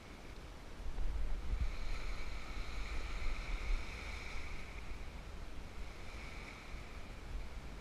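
Small waves washing onto the shore in a swelling and fading hiss, with wind rumbling on the microphone from about a second in.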